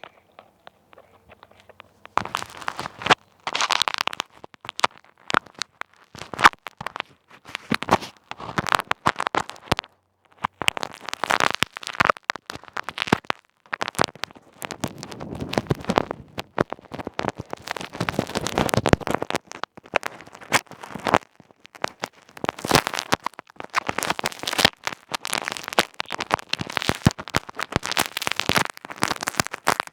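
Close crackling and rustling of a plastic bag wrapped over a headset microphone as it is handled, a dense run of irregular clicks that begins about two seconds in.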